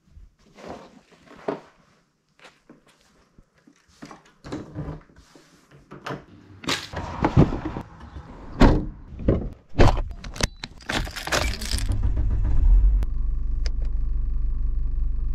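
Fishing gear being handled and loaded into a car's boot: rustling, clicks and knocks, then several loud thumps and clunks. For the last few seconds a car engine idles steadily.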